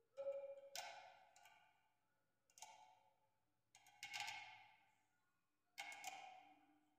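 Faint metal clinks of a tool on the geyser's heating-element fittings, each strike ringing briefly and fading. There are about five strikes, spaced a second or two apart.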